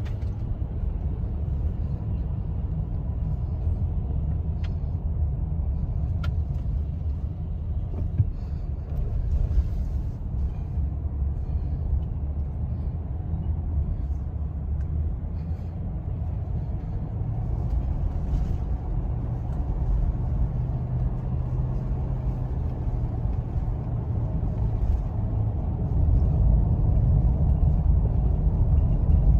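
Steady low rumble of a car's engine and tyres on the road, heard from inside the cabin while driving, getting louder near the end.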